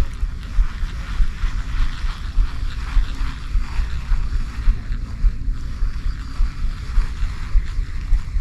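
Wind buffeting the microphone outdoors: an uneven, gusting low rumble with a steady hiss above it.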